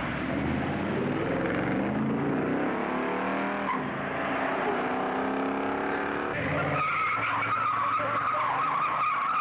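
A car accelerating hard, its engine note rising steadily through the first six seconds. Then, from just before seven seconds in, a loud, steady tyre squeal as a vehicle spins and slides its rear wheels on the tarmac.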